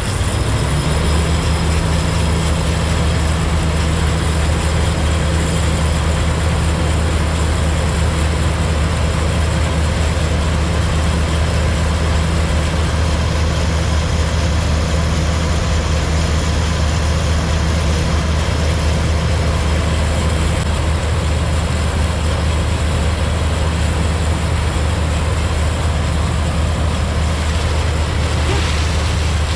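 Combine harvester's diesel engine running steadily under load with a deep hum, its pitch rising slightly in the first second and then holding.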